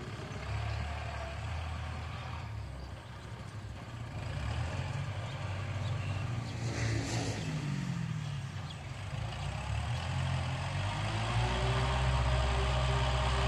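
Kubota L5018 SP tractor's four-cylinder direct-injection diesel engine running steadily under load while pulling a six-disc plough through the soil, growing louder over the last few seconds.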